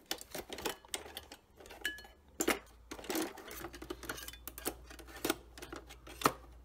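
Paper being handled at a craft table: light, irregular clicks, taps and rustles as a cut-out picture card is moved over the pages of a paper journal.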